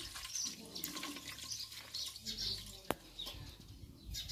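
Water splashing and dripping as a hand works in a steel bowl of water, with a single sharp click about three seconds in.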